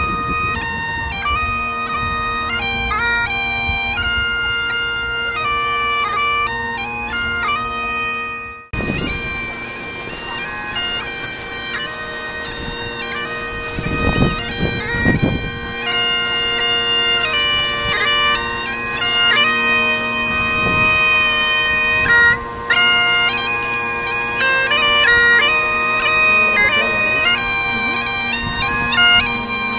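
Great Highland bagpipes played solo: steady drones under a stepping chanter melody. The tune breaks off abruptly about nine seconds in and picks up again at once.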